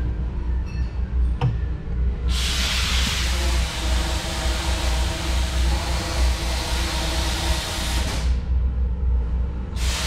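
Steady low machine hum, joined about two seconds in by a loud rushing hiss that drops out for a couple of seconds near the end and then returns.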